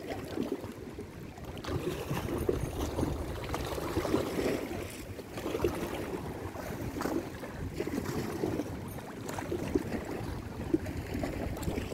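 Small waves lapping and splashing irregularly against a rocky lakeshore, with a low rumble of wind on the microphone.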